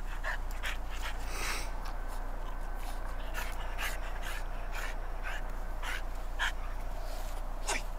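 French bulldog puppy panting in short, irregular breaths, over a steady low hum.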